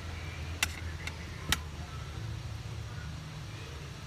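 Three short, sharp clicks in the first second and a half, over a steady low hum.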